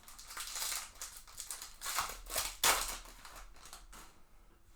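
Wrapper of a baseball card pack torn open and crinkled: a run of rustling rips over the first three seconds, then quieter handling.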